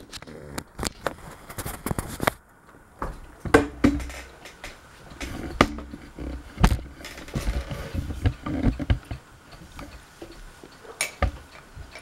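Irregular knocks and clicks with some low rumbling: handling noise while the camera is moved about.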